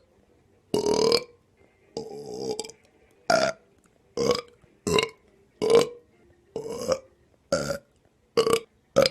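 A person burping over and over: about ten short belches, roughly one a second, with a longer, weaker one about two seconds in.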